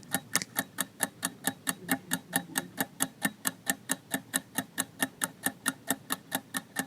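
Ticking clock sound effect counting down a quiz timer, a steady tick at about four a second.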